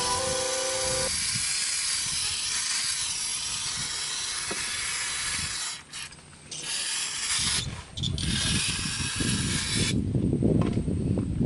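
Aerosol spray can of cleaner hissing in long bursts, with two short breaks a little after halfway, until about ten seconds in. Then a lower, uneven rustling and handling noise.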